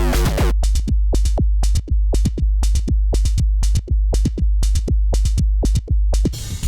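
Electronic drum-machine loop played through a bit-crushing effect. Synth chords drop out about half a second in, leaving sharp percussive hits about three a second over a steady deep bass. Near the end it switches to a fuller, noisier drum-kit sound.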